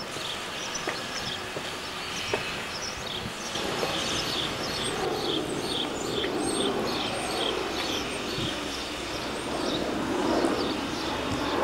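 Diesel freight locomotive approaching with a loaded train of wagons, its engine rumble growing louder from about three and a half seconds in. A bird chirps repeatedly over it.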